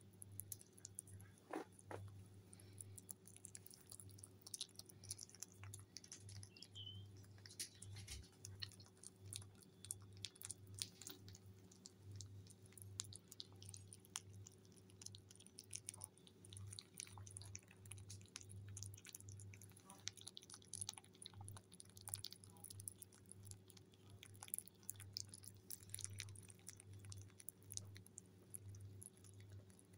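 Mini Lop rabbits, a baby bunny among them, nibbling and chewing soft banana held in the fingers: a quick, irregular run of tiny wet clicks from their mouths.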